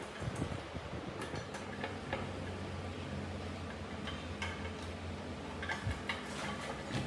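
Scattered light metallic clicks and taps from a screwdriver and small metal parts as the blade guard of a cut-off saw is screwed on by hand, over a steady low hum.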